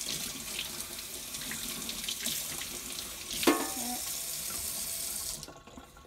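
Kitchen faucet running into a stainless steel sink, the stream splashing over a coffee-maker part as it is rinsed, with a single sharp clunk about three and a half seconds in. The water shuts off abruptly about five and a half seconds in.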